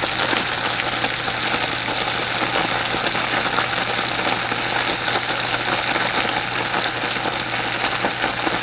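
Candy syrup of sugar, corn syrup and water boiling hard in a stainless steel saucepan, a steady dense crackling bubble. It is at about 250°F, still short of the hard-ball stage. A steady low hum runs underneath.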